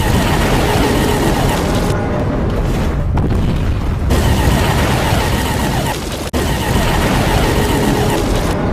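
Explosion and destruction sound effects played back to back: a loud, continuous blasting rumble with several abrupt seams where one effect cuts into the next.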